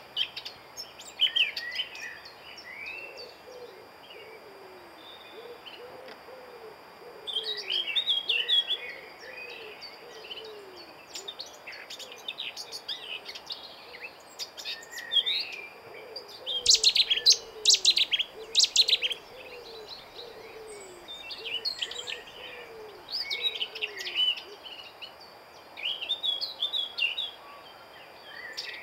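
Mixed songbirds singing: quick chirps and warbling phrases from several birds, loudest around the middle. Under them a lower, falling call repeats about once a second until roughly two-thirds of the way through.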